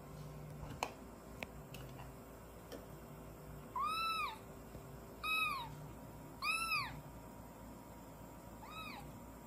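A kitten meowing four times: short, high mews that each rise and then fall in pitch, the last one fainter. A couple of light clicks come near the start.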